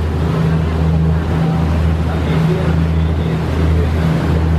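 A motor boat's engine runs steadily at cruising speed as a deep, even drone, over the rushing hiss of water churned up in its wake.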